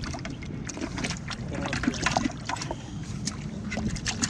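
Water sloshing and splashing in a bucket as a hand rummages among live perch, with many small irregular splashes over a steady low background noise.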